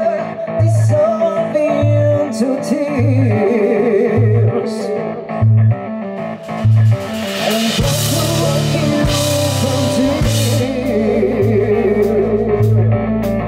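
Live rock band playing an instrumental passage on electric guitar, bass guitar and drum kit. A low bass note pulses about once a second, and about seven seconds in the cymbals and drums crash in fully for a few seconds before the pulse returns.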